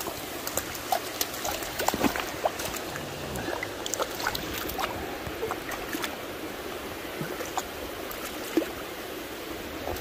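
Steady rush of creek water, with many small close clicks and splashes scattered through it.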